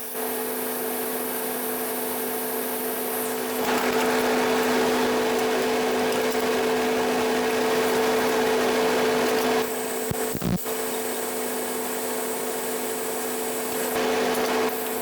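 A power tool running, its motor giving a steady hum under a rough rasping noise of work on material. The sound changes abruptly three times, like cuts between takes.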